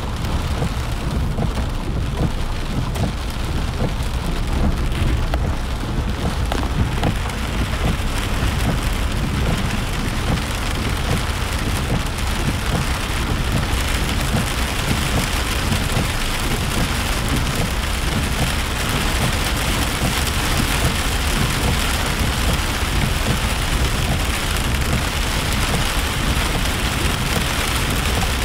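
Rain falling on a moving car's roof and windshield, heard from inside the cabin, over the steady low rumble of the car and its tyres on the wet road. The rain's hiss grows stronger about halfway through.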